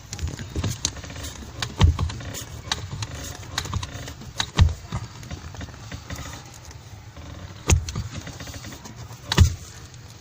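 Clutch pedal being pressed and released in the footwell, its freshly lubricated pushrod pivot working: four dull knocks spread through the stretch, with scattered small clicks and rattles in between.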